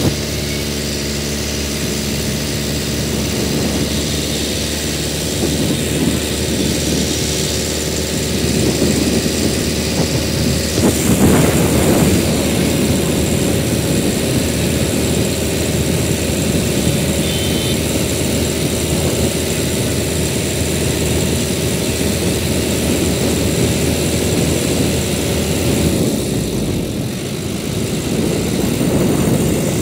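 Steady drone of a moving vehicle's engine and road noise while driving along an elevated road, with a louder rush about eleven seconds in.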